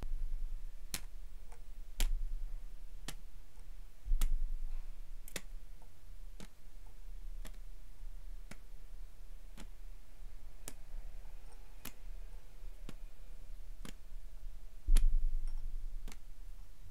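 Steady ticking, about one sharp tick a second. Four dull low thumps come through it: one at the start, one at about two seconds, one at about four seconds, and the loudest about fifteen seconds in.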